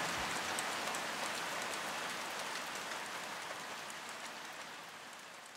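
Steady hiss of falling water, like rain, with faint scattered ticks, fading out gradually. A music track ends right at the start.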